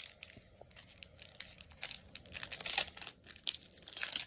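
Foil Pokémon booster pack being torn open by hand and crinkled: a string of short, sharp crackling rips, loudest about two and a half seconds in and again near the end.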